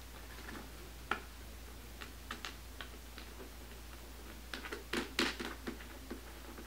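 Scattered small clicks and ticks of stiff plastic panels and small bolts being handled as a bolt is pushed through holes in the panels, with a quick run of louder clicks about five seconds in.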